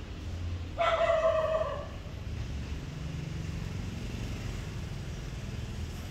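A kitten gives a single meow about a second in, lasting about a second, over a low steady background rumble.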